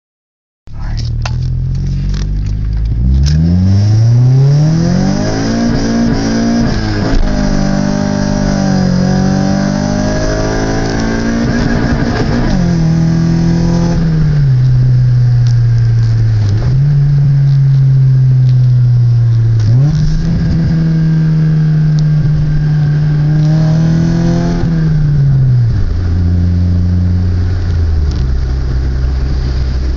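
Acura Integra LS four-cylinder engine being driven hard: it revs up and accelerates early on, then the pitch steps up and down several times with the throttle and gear changes, holding steady between. Near the end the revs drop to a lower, steady note.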